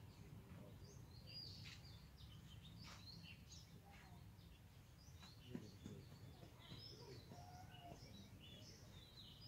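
Faint outdoor ambience: small birds chirping, with many short high calls scattered throughout, over a low steady rumble.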